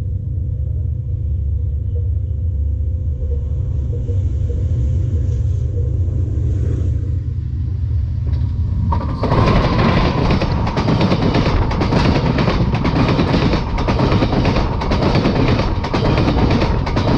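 A diesel train approaches with a low rumble, then about nine seconds in it passes right over the rails next to the microphone: a loud clatter of wheels on rail with rapid, irregular knocks.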